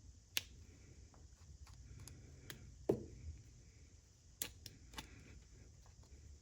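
Faint, scattered clicks and light knocks of a pistol and its polymer beavertail being handled and test-fitted, about six sharp clicks with one duller, louder knock about three seconds in.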